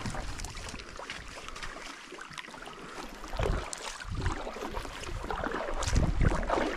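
Wind buffeting the microphone in low rumbling gusts, strongest near the end, over a hiss of rustling and small knocks.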